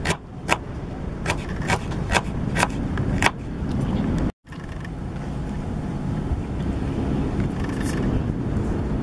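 Kitchen knife chopping red onion and chillies on a wooden cutting board: about seven sharp knocks, unevenly spaced, over the first three seconds. From about four seconds in, only a steady low background rumble remains.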